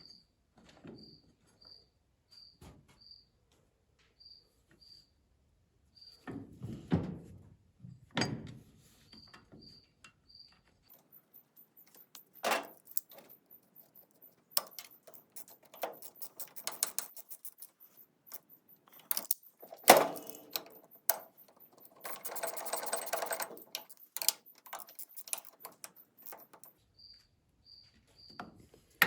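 A cricket chirping in evenly repeated short high chirps during the first third and again near the end. Between them come metallic clinks, knocks and a rapid run of clicks from hand tools and nuts being worked onto the studs of a baler's knotter brake; the loudest knock comes about twenty seconds in.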